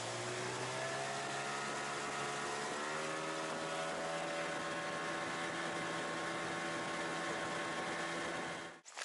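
Tohatsu tiller outboard motor running under way, pushing an inflatable boat: a steady engine note that steps up in pitch about three seconds in and then holds. The sound cuts off suddenly near the end.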